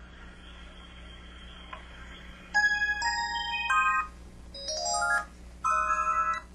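IM-7700 mobile phone playing short electronic effect sounds. After a faint, steady opening, three quick bursts of synthesized beeping notes step up and down in pitch, the middle one a rising run.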